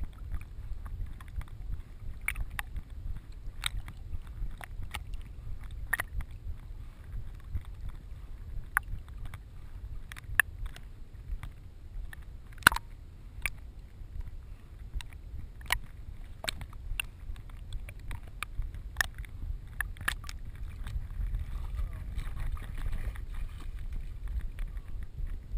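A retriever swimming with a GoPro strapped to its vest: water sloshs and splashs against the camera housing as a low, muffled rumble, broken by frequent sharp clicks and knocks. Near the end the sound changes as the dog climbs out onto dry ground.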